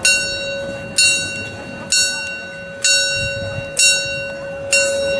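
A bell struck at a steady rate of about one strike a second, six strikes in all, each ringing on until the next.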